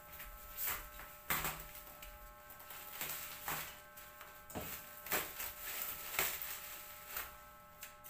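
Plastic wrapping on a cardboard box being pulled and torn open by hand: irregular crinkling rustles and scrapes, a few louder ones among them.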